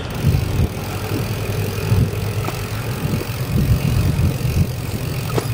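Riding a bicycle along a paved road: a steady, uneven rumble of wind on the microphone mixed with tyre and road noise.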